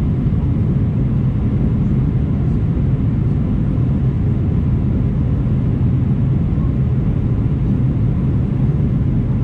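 Steady low rumble inside the cabin of an Airbus A319 airliner: engine and airflow noise heard from a passenger seat, unchanging throughout.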